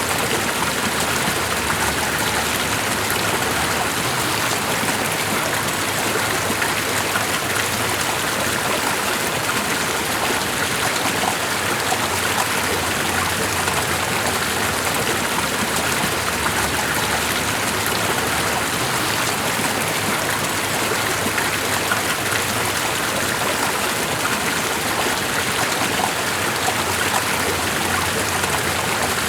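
Steady, unbroken water noise with a fine, even patter of many small drops.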